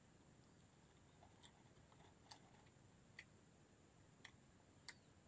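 Near silence, with a faint steady high whine and about five faint, sharp clicks roughly a second apart.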